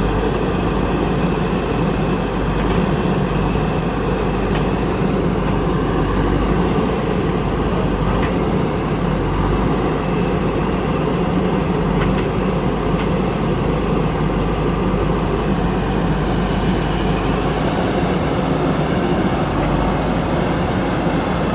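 Heavy diesel machinery engine running steadily and loudly, with no change in pace.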